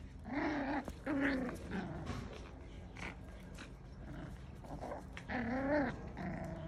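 Miniature schnauzer puppies play-growling as they wrestle and mouth: several short, high-pitched growls, the loudest about three-quarters of the way through.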